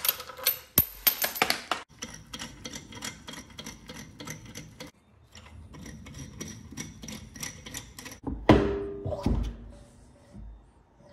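A DeWalt cordless drill/driver with a socket spins wheel bolts out of the wheel, with sharp clicks, then long runs of quick ticking at about six a second. Near the end come a couple of heavy thumps as the wheel is handled.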